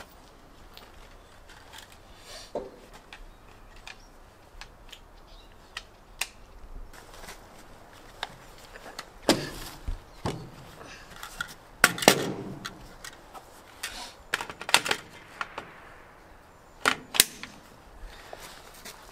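Kalashnikov rifle being handled and loaded: a series of sharp metal clicks and clacks as its curved magazine is worked at the magazine well.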